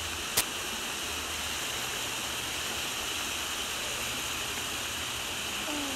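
Steady rushing beach ambience, an even noise like surf and wind, with one sharp click about half a second in.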